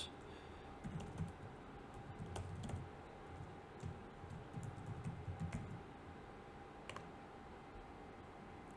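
Faint typing on a computer keyboard: a run of soft, irregular keystrokes for about five seconds, then one sharper click about seven seconds in.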